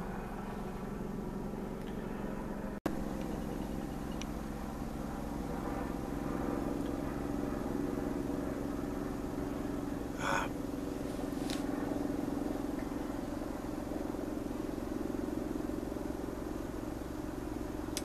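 Steady low mechanical hum, like an engine or motor running nearby, that gets a little stronger after a few seconds. It cuts out for an instant about three seconds in, and two short higher-pitched sounds come about ten and eleven seconds in.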